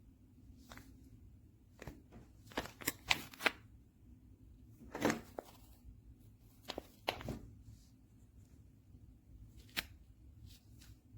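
A series of scattered clicks, taps and rustles, as of something being handled, with a cluster of sharper clicks about three seconds in and a few more later.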